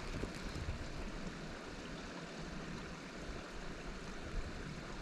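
Wind buffeting the microphone, an uneven low rumble over a steady rushing hiss.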